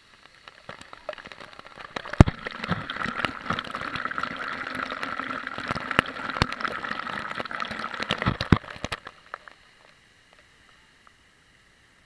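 Waterfall water splashing and pouring right at the action camera, a rushing hiss with many sharp knocks of water striking the camera. It builds up about a second in and stops short about three-quarters of the way through.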